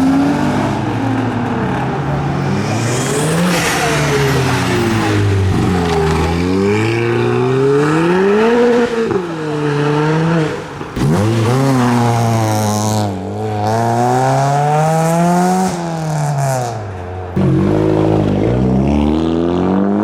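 A modified car engine revved hard again and again, its pitch climbing and falling every second or two, with brief lifts off the throttle.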